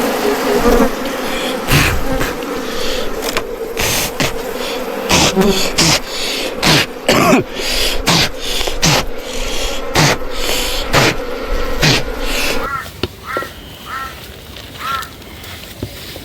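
Wild bees swarming close by: a loud, steady buzzing drone with frequent crackles and knocks. The drone stops about thirteen seconds in, leaving a few short chirps.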